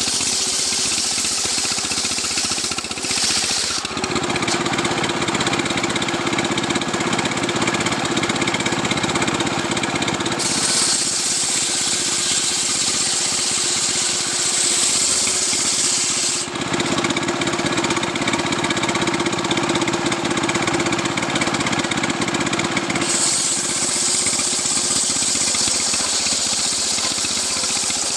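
Two-stroke chainsaw running hard while sawing a coconut palm trunk into a beam. Its tone shifts back and forth every six seconds or so as the load on the bar changes.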